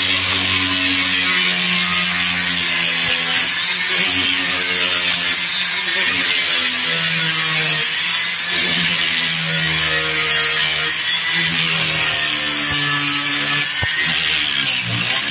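Handheld pen-style electric rotary grinder running continuously, its bit grinding the inside of a Suzuki RGR 150 crankcase half, with a hissing whine whose pitch wavers up and down.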